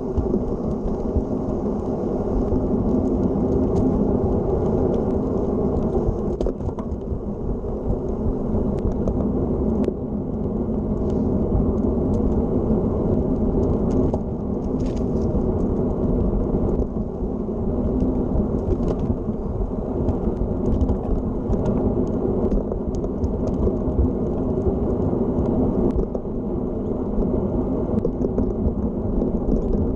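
Steady wind rush and buffeting on a handlebar-mounted camera's microphone while a road bike rolls along a paved path, mixed with the low rumble of its tyres on the asphalt.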